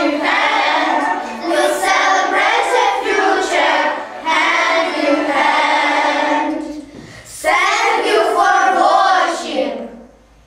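A group of schoolchildren singing a song together. There is a short break about seven seconds in, and the singing ends about ten seconds in.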